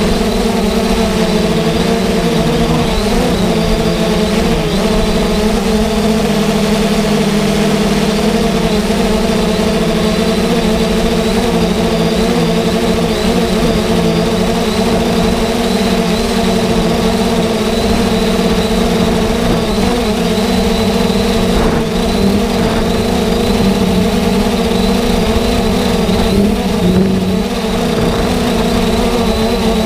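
Multirotor drone's electric motors and propellers whirring steadily, heard through its onboard camera, the pitch wavering slightly in the first few seconds.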